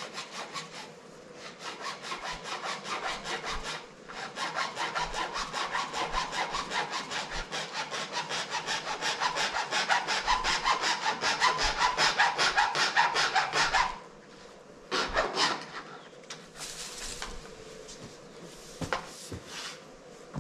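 Hand saw cutting through a white PVC rainwater pipe in quick, steady back-and-forth strokes that stop abruptly about fourteen seconds in, followed by a few scrapes and knocks as the pipe is moved.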